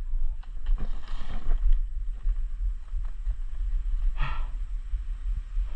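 Steady low rumble on the microphone, with two brief scuffing sounds about one second and four seconds in.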